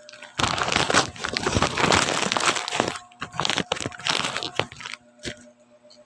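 Plastic wrapping and packing tape on a parcel being torn and crumpled by hand, in dense crinkling bursts with short pauses, then a single sharp click near the end.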